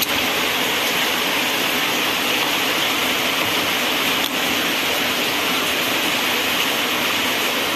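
Steady rain falling hard: an even, unbroken hiss.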